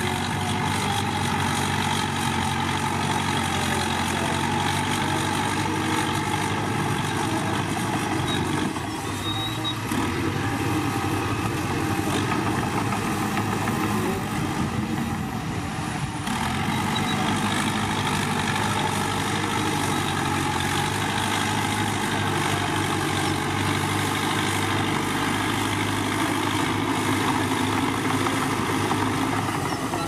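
Diesel engines of crawler bulldozers, a Caterpillar among them, running steadily at work alongside a tipping dump truck. The sound eases slightly twice, about a third of the way in and about halfway.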